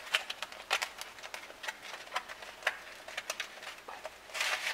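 Clear plastic cover of a Keebler Ready Crust graham pie crust crinkling and clicking as fingers pry it off the rim of the foil pie pan. A louder rustle of plastic comes near the end.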